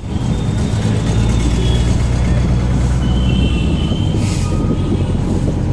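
Auto-rickshaw engine running with a steady low rumble, with a short hiss about four seconds in.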